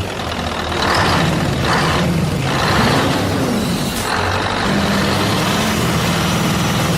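Heavy truck engine running with a steady low rumble, with short hisses like air-brake releases about one, two and three seconds in.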